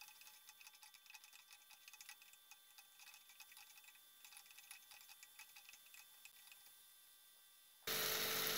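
Near silence with faint, irregular light clicks, at an uneven few per second.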